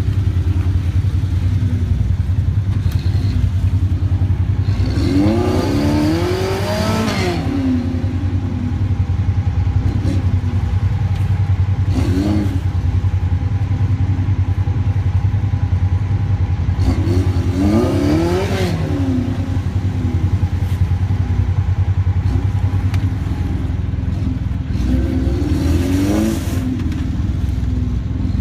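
A Suzuki Samurai's small engine revs in about four bursts as it crawls up a rock ledge under load, each rev rising and falling in pitch. Between the revs a steady low engine rumble carries on.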